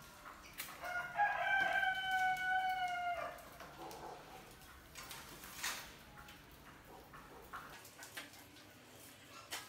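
A rooster crowing once: one long call held for about two and a half seconds, falling slightly in pitch. A few sharp clicks follow later.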